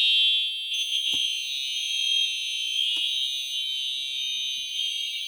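Fire alarm horns sounding a steady, continuous high-pitched electronic tone, several close pitches together with no on-off pattern. Two small knocks come through it, about one and three seconds in.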